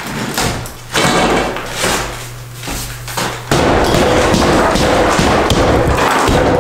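A hammer knocking against a lath-and-plaster wall, with brittle plaster cracking and breaking away from the wooden lath. Separate knocks come first; about halfway through, a denser, louder run of blows and crumbling begins.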